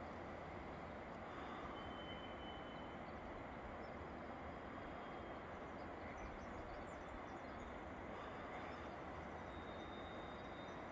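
Quiet lakeside morning ambience: a steady soft hiss with a few faint, long whistled bird notes, each held about a second at a slightly different pitch.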